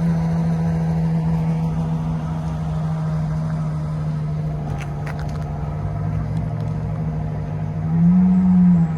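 A steady pitched mechanical drone from a running vehicle, holding one pitch and then rising about a second before the end, with a short patter of clicks around the middle.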